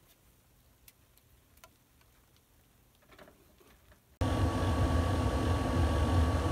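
A few faint clicks of screwdriver work, then from about four seconds in an RV furnace running, heard at its outside vent: a steady blower hum with a thin steady whine, not squeaking now that the blower motor's bushings have been seen to.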